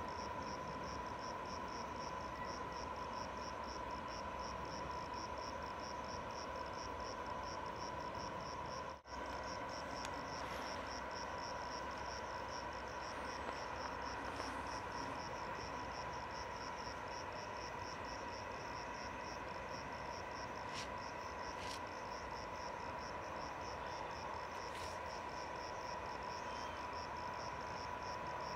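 Insects chirping in an even, pulsing trill, several pulses a second, over a steady faint hum and background hiss. The sound cuts out for an instant about nine seconds in.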